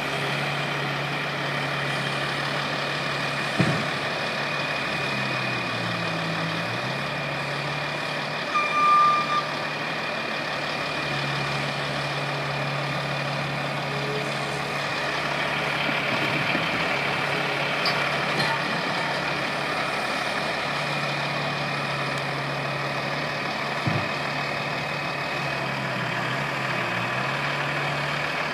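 Skid-steer loader's engine running steadily under load, its pitch dipping and rising twice as the machine works, over a steady high whine. A single short high beep sounds about nine seconds in, and two sharp knocks come near the start and near the end.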